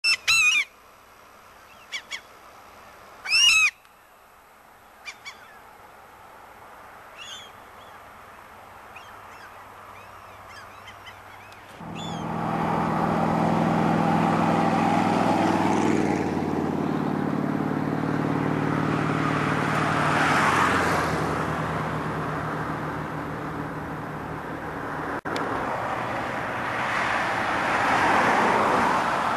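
A bird gives a few short, high calls in the first dozen seconds, two of them loud. About twelve seconds in, a motor vehicle's engine comes in with a steady low hum and keeps running, swelling and easing.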